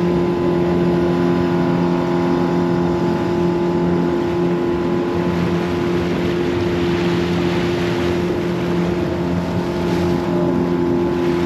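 Fishing boat's outboard motor running steadily at cruising speed, with water rushing past the hull.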